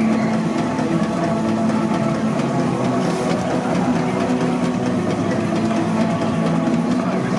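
Steam engine running steadily, a continuous droning hum with no distinct beats or stops.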